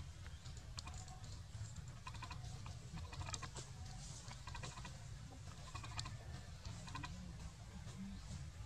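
Faint, irregular clicking and crackling of twigs and dry leaves, in small clusters through the middle seconds, over a low steady rumble.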